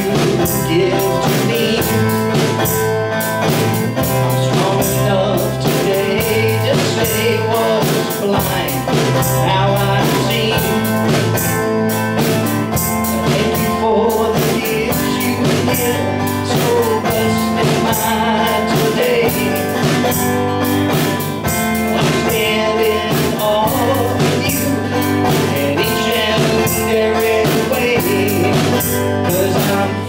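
Live band playing a song: drum kit with regular cymbal and snare strikes, bowed upright bass and a twelve-string acoustic guitar, with a man singing.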